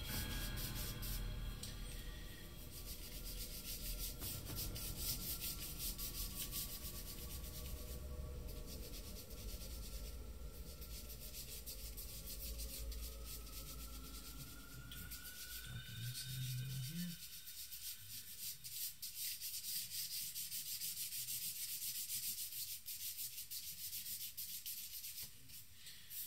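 Paper blending stump rubbing charcoal into drawing paper in repeated short strokes, a dry scratchy rasping.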